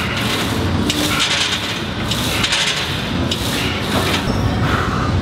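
A fast, high-rep set of incline presses on a Smith machine, making a rubbing, sawing noise in bursts about once a second, one per rep.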